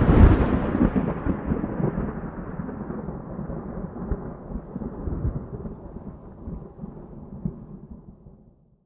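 A rumble of thunder, loudest right at the start and then rolling away, dying out over about eight seconds.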